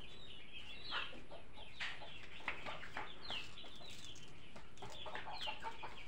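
Chickens clucking, with a steady run of short, high chirps throughout.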